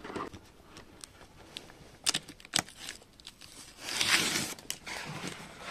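A product box being opened by hand: scattered clicks and crinkling of packaging, with a louder rustling tear about four seconds in.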